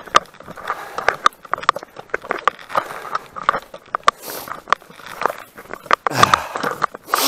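Footsteps knocking on the wooden plank deck of a cable suspension bridge, roughly three a second. Near the end there are a couple of louder rustling brushes against the camera.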